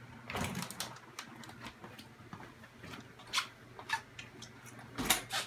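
Empty manual wheelchair being rolled across a tile and wood floor: scattered light clicks and rattles, with a cluster of louder knocks near the end.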